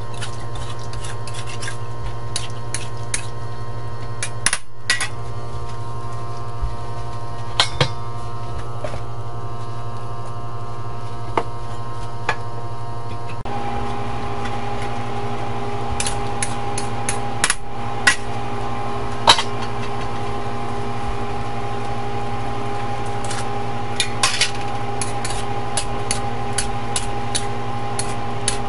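Metal wok spatula clinking and scraping against a steel wok in irregular strokes while stir-frying, over a steady background hum.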